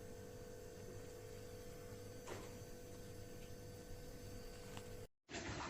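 Steady electrical hum with a fixed mid-pitched tone and a faint click about two seconds in; it cuts off abruptly near the end.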